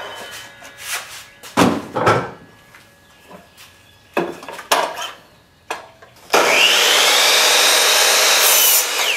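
A few sharp knocks of wooden boards being handled and set against a miter saw's fence, then about six seconds in the electric miter saw starts with a rising whine and cuts through a wooden board, its motor beginning to wind down near the end.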